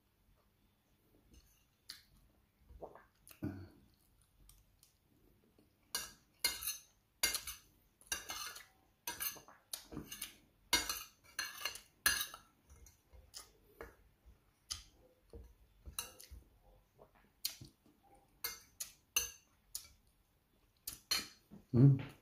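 Metal spoon and fork clinking and scraping on a ceramic plate while eating, in many short irregular strokes. Near the end there is a brief, louder low sound from the eater's voice.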